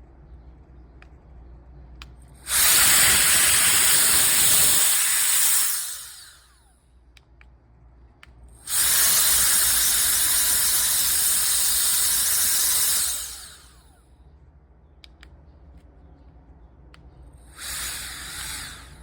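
CCV cordless electric air duster with a high-speed brushless motor blowing in three blasts: two long ones of a few seconds each, then a shorter, quieter one near the end. After each long blast the motor's whine falls away as it spins down.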